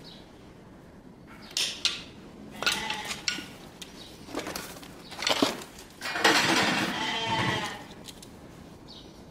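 Sheep bleating: one longer, loud bleat about six seconds in, after a run of short clicks and knocks.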